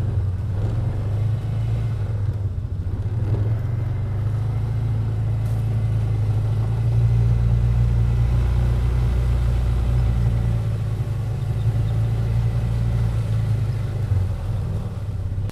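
Polaris Ranger Crew 500 EFI side-by-side with its single-cylinder four-stroke engine running steadily with a low drone as it drives over the leafy forest floor toward the camera and up close.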